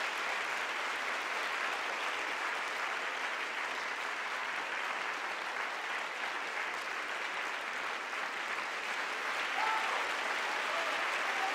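Audience applauding steadily, with a single voice calling out briefly near the end.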